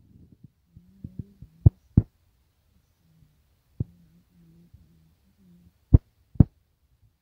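Wooden spatula stirring rice in a cooking pot, knocking sharply against the pot five times: two close together about two seconds in, one a little later, and two more near the end, over a faint low hum.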